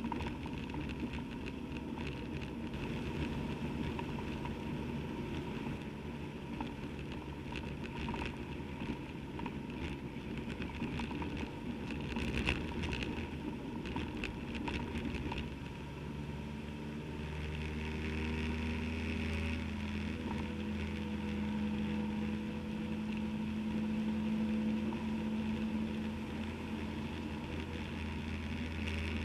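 Motorcycle engine running on the road, with wind noise over the microphone. About halfway through, the engine note settles into a steady, even tone.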